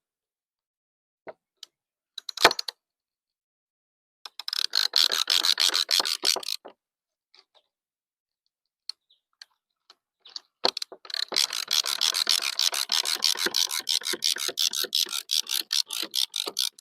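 Banding tensioner being ratcheted to tighten a strap around a bundle: fast, even runs of clicks, one of about two seconds and a longer one of about six seconds near the end, after a single sharp click a couple of seconds in.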